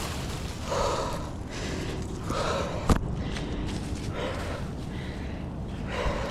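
A tree climber breathing hard, about four heavy breaths spaced roughly a second and a half apart, with one sharp knock a little before halfway.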